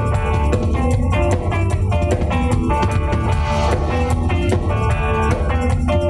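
Live rock band playing loudly: electric guitar lines over a steady drum-kit beat and bass.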